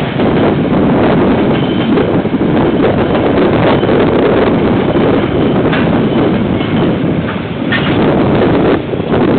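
KiwiRail freight train's container and tank wagons rolling past on the rails, a loud steady rumble with a couple of sharp knocks in the second half.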